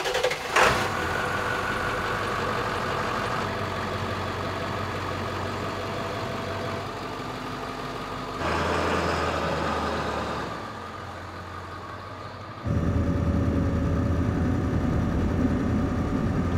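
Ford F-350 diesel pickup's engine running steadily. The sound shifts abruptly twice, about 8 and 13 seconds in, and is loudest and deepest in the last stretch.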